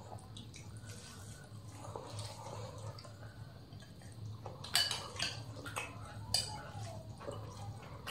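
Eating-show sounds: fingers squishing rice and curry on a banana leaf, with soft mouth and chewing noises. Two sharp clinks of a metal spoon against a glass curry bowl, just before five seconds in and again about a second and a half later, are the loudest sounds, over a low steady hum.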